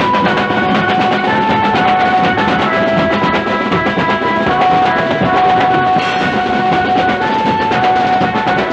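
Procession band music: fast, loud drumming on a set of drums and cymbals under a melody of held notes that step up and down in pitch. A sharp crack stands out about six seconds in.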